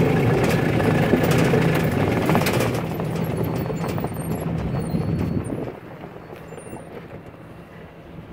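Engine running at a steady pitch, then dropping away sharply about six seconds in, leaving a faint low hum.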